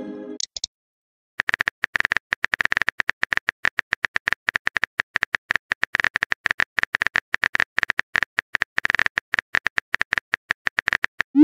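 Phone keyboard key-click sounds, rapid and irregular, as a text message is typed out. The fading tail of a message tone sounds at the start, and a short rising send tone begins at the very end.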